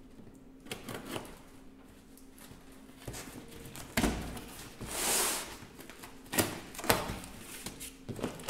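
Packing tape on a cardboard box being slit with a knife and the flaps pulled open: scattered scrapes and cardboard rustles, a longer rasp of tape or cardboard about five seconds in, and several sharp clicks near the end.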